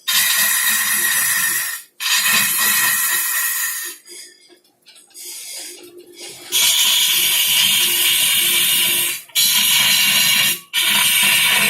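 Wood turning on a lathe: a cutting tool shaving the spinning wood gives a loud, even hiss that breaks off abruptly several times, quieter for a couple of seconds in the middle, over a faint steady hum.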